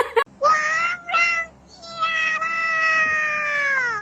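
Domestic cat meowing three times: two short meows, then one long drawn-out meow that falls in pitch at the end.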